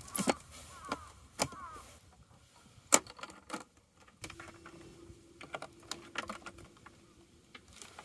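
Folding aluminium camp table being unfolded and set up: its metal legs and frame squeak, click and clack into place, with one sharp knock about three seconds in and lighter clicks later on.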